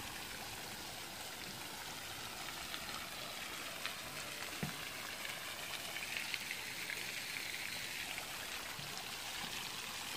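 Fountain water splashing steadily into a pond, an even rushing patter, with a few faint soft knocks.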